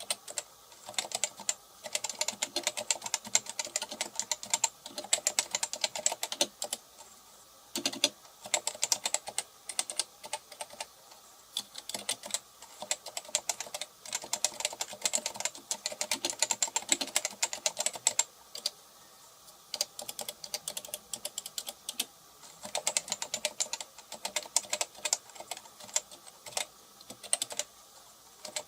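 Topre Type Heaven electrostatic capacitive keyboard being typed on: fast runs of keystrokes, several a second, broken by short pauses every few seconds.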